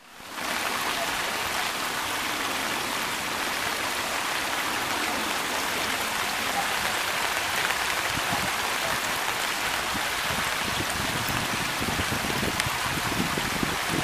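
Steady hiss of rainwater: runoff from a downpour flowing across a flooded dirt street. Low irregular rumbling bumps come in during the second half.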